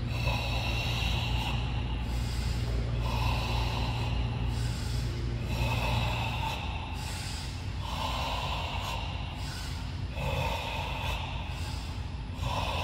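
A person breathing forcefully in a steady rhythm: about six long, loud breaths, one every two and a half seconds or so, in the manner of karate controlled breathing.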